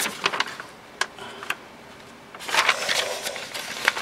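Sheets of paper rustling and flapping as a stack is leafed through by hand, in short crackles with a longer burst of rustling about two and a half seconds in.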